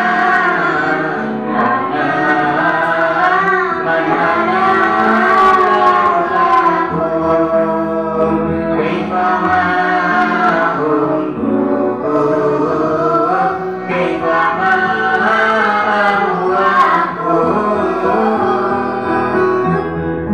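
A group of children with a man singing a song together into microphones, over a steady instrumental backing.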